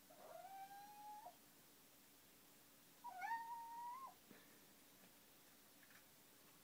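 Kitten meowing twice, two long drawn-out whining meows about three seconds apart, the second louder: a cat complaining at being kept from going outside.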